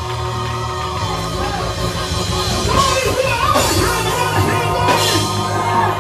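A live gospel praise band with drum kit, cymbals and bass plays while a lead voice sings over it through the church sound system.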